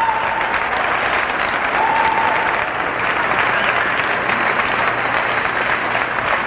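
Arena crowd applauding steadily, with two short high tones, one at the very start and one about two seconds in.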